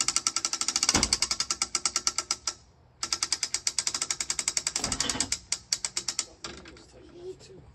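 A ratchet mechanism on a homemade sawmill clicking rapidly, about ten clicks a second. It runs in two long stretches with a brief pause between them, then slows to a few scattered clicks near the end.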